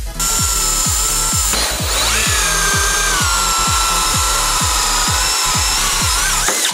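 Electric drill driving a hole saw through an MDF board: a steady high whine over the hiss of cutting, wavering in pitch about two seconds in and cutting off suddenly near the end. Electronic music with a steady beat plays underneath.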